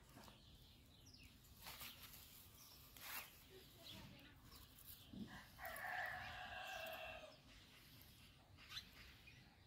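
A rooster crowing once, faint, for about two seconds a little past the middle. Soft clicks and rustles of twine and fish being handled come and go around it.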